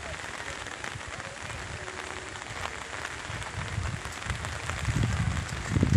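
Steady rain falling, an even hiss with scattered ticks of drops. A low rumbling noise on the microphone swells near the end.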